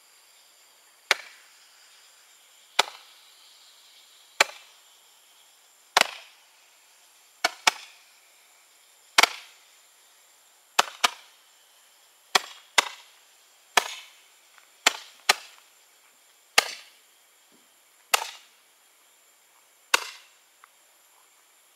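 Consumer multi-shot firework cake firing one shot after another: sharp pops about once a second, some coming in quick pairs.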